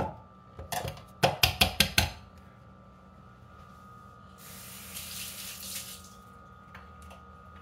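Espresso portafilter rapped against the bar of a knock box to dump the spent coffee puck: a few light taps, then five sharp knocks in quick succession. A few seconds later comes a short hiss lasting about a second and a half.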